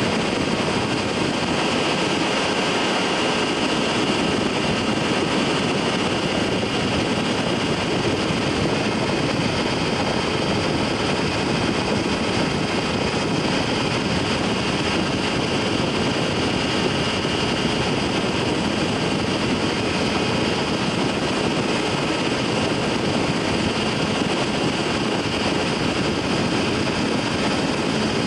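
Microlight aircraft in flight: its engine and propeller run at a steady cruise setting, heard as an even, unbroken noise with a faint steady whine on top.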